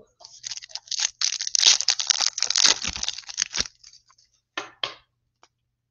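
Wrapper of a 2023 Donruss football hobby card pack being torn open and crinkled for about three and a half seconds, followed by two brief rustles near the end.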